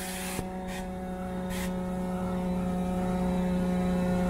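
Steady hum of a carpet-cleaning truckmount's vacuum pulling through an upholstery tool. About half a second in there is a click, followed by two short bursts of hiss.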